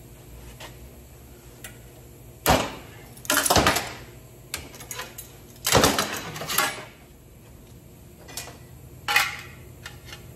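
Sheet steel clanking and rattling as a freshly bent piece is handled against metal, in five or so separate knocks, the loudest about two and a half, three and a half and six seconds in.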